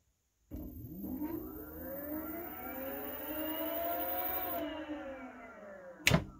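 Electric scooter's hub motor spinning the lifted wheel under throttle: a rising electric whine with a faint high whistle from the controller, done as a test spin to check that the freshly bled hydraulic brake's pads don't rub on the disc. A few seconds in the whistle stops and the whine falls as the wheel coasts. A single sharp click near the end.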